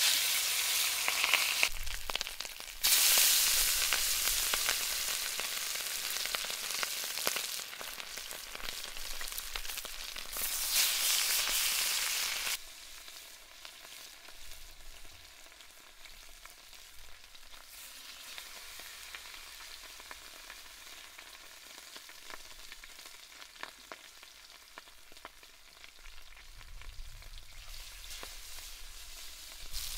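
Pieces of beluga fish sizzling and crackling in hot oil in a cast-iron pan. The sizzle flares sharply at the start, again about three seconds in and around eleven seconds, settles to a quieter steady frying from about twelve seconds, and swells again near the end as more pieces go in.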